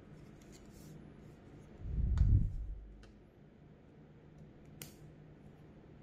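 A low, dull thud about two seconds in as the plastic desk fan is set down on the table. It is followed by a few light clicks and rustles of a USB cable being handled.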